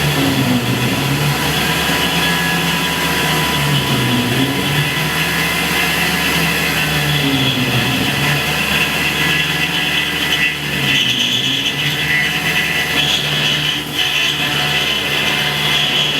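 Tormach PCNC 1100 CNC mill running a program, its spindle turning an end mill through 6061 aluminum. A steady machine hum whose pitch shifts in steps as the cut changes, with a high whine that grows stronger about two-thirds of the way through.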